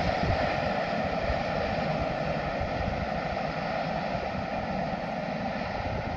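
Steady rumble of a freight train at a distance, fading slightly, with wind buffeting the microphone.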